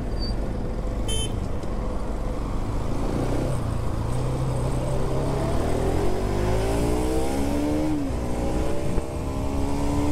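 Motorcycle engine accelerating: its pitch rises steadily for a couple of seconds, drops sharply at a gear change about eight seconds in, then climbs again.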